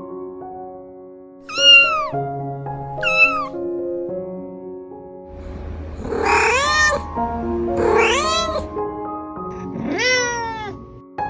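A cat meowing five times over soft background music: two short meows, then three longer, louder ones.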